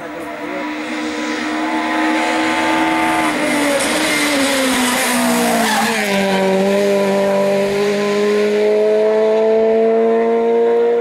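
Rally car engine at high revs on a stage: it holds a steady note, falls in pitch around the middle as the car slows, then climbs slowly and steadily as it accelerates away.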